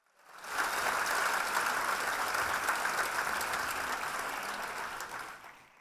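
Audience applauding, swelling up in the first half-second and dying away near the end.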